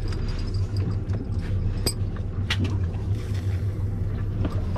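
Boat engine running at idle, a steady low hum, with a few sharp clicks and knocks on deck.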